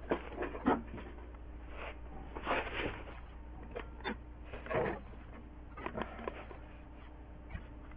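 Irregular short rustles, scrapes and a few small clicks, the handling noise of a hand-held camera being moved, over a low steady hum.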